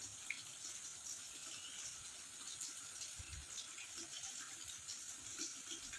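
Quiet outdoor ambience: a faint, steady high hiss, with a soft low thump a little past three seconds in.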